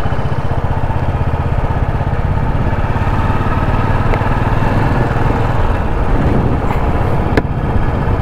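Royal Enfield Classic 350's single-cylinder engine running steadily with a rapid, even pulse, and a short sharp click near the end.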